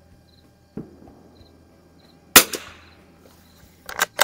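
Winchester 52D bolt-action .22 LR target rifle firing a single shot, a sharp crack with a short echo. About a second and a half later come quick metallic clicks of the bolt being worked to eject the case and chamber the next round.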